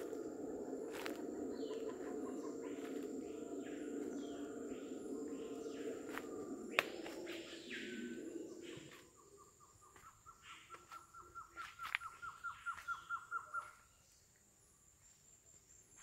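Howler monkeys calling as a low, continuous roar, which stops about nine seconds in. Then a bird gives a fast run of short repeated notes that grows louder for about four seconds. Under it all there is a steady high insect buzz and a few clicks of footsteps on the trail.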